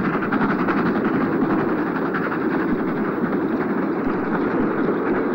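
Steam-hauled freight train running past: a steady, continuous train noise of the locomotive working and its wagons rolling.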